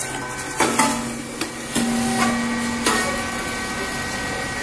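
SYP2515 puffed rice cake machine running with a steady hum, its mould mechanism giving several sharp knocks in the first three seconds as the puffed rice cakes are released.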